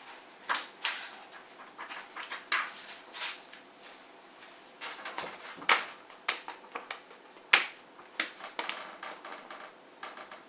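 A book being handled: irregular paper rustles and brief swishes with light taps and clicks, the sharpest tap about three-quarters of the way through.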